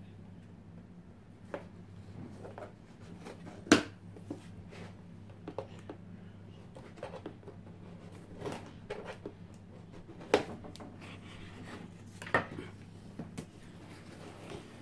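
Cardboard box and packing material being handled and rummaged through: scattered knocks, taps and rustles, the sharpest about four seconds in, over a steady low hum.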